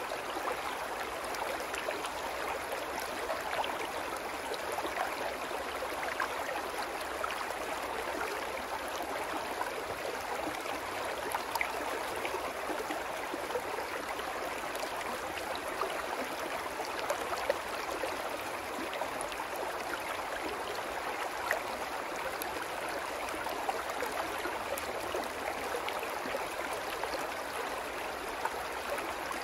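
Small brook babbling over rocks in a shallow run, a steady rush of flowing water.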